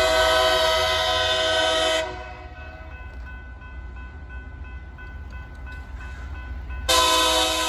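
Air horn of a LORAM rail grinder train sounding two long blasts: one ending about 2 seconds in and another starting near the end, over the steady low rumble of its engines.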